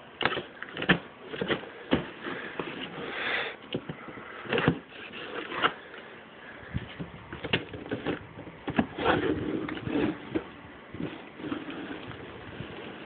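Cardboard shipping box being opened by hand: irregular scrapes, knocks and crinkles of cardboard and packing paper.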